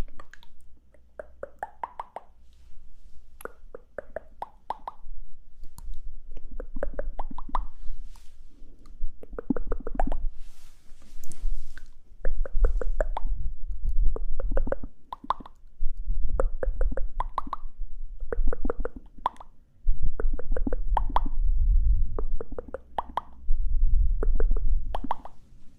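Close-miked ASMR mouth sounds: wet tongue clicks and lip pops in quick little clusters, one every second or two.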